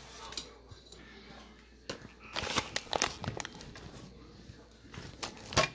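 Plastic snack wrapper crinkling as it is handled and opened, in two spells of crackling: about two seconds in and again near the end.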